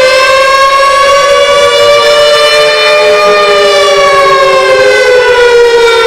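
Several outdoor tornado warning sirens wailing loudly together. Each slowly rises and falls in pitch out of step with the others, so the tones drift apart and cross over.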